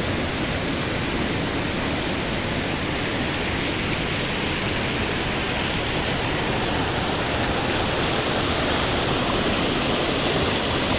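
River water rushing over rocks in shallow rapids: a steady rush that grows a little louder over the last few seconds.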